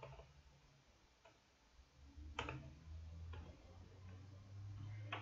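Scattered keystrokes on a computer keyboard: a few separate clicks, the strongest about halfway through, over a faint low hum.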